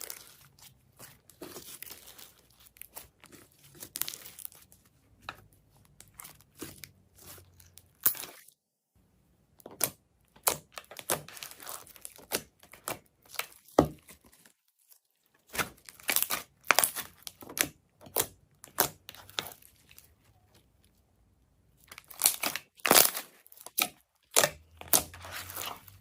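Crinkling and crackling handling noise in irregular short bursts, with a few brief pauses, as the slime-balloon materials are squeezed and worked by hand.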